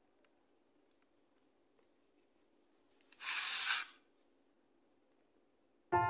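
A kitchen knife drawn through rolled-out croissant dough, one scraping stroke about a second long, about three seconds in. Piano music starts near the end.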